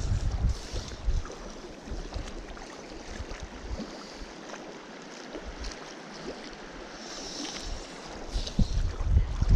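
Small mountain stream running, with gusts of wind buffeting the microphone; the gusts are strongest at the start and again near the end, easing off in the middle.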